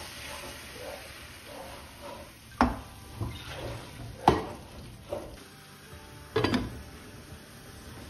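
Wooden spoon stirring vegetables in an aluminium frying pan over a faint sizzle, with three sharp knocks against the pan about a second and a half to two seconds apart, the last a quick double.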